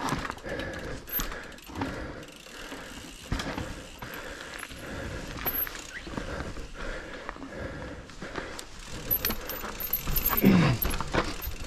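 Mountain bike being ridden up a rough forest trail: chain, drivetrain and frame rattling and clicking, with tyres on dirt and roots. It gets louder near the end, where a few short falling pitched sounds come through.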